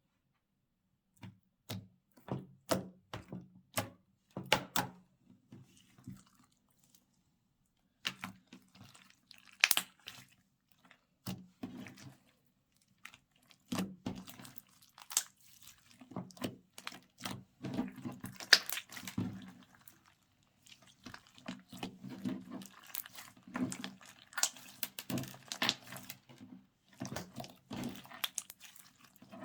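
Slime being mixed and squished by hand: irregular runs of sticky clicks, pops and squelches, with a short pause at the start and another about a third of the way in.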